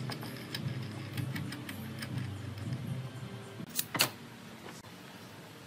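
Wooden pieces handled on a workbench, with light ticks and then two sharp wooden knocks close together about four seconds in.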